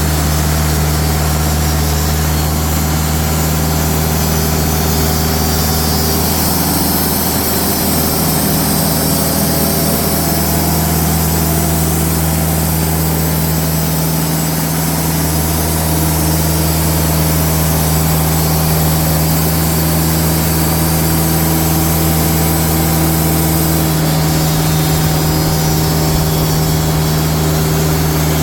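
Diesel engine of a TimberKing sawmill running at a steady speed, with a high hiss above its hum that is a little stronger through the middle.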